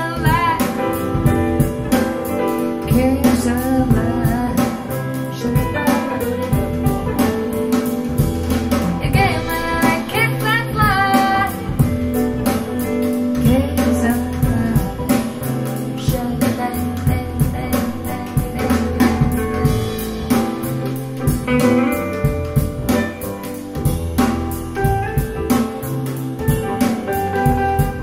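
A live recording of a female singer with guitar and drums, played back over JBL L100 Classic 75th loudspeakers and picked up by microphones about ten feet away in the listening room.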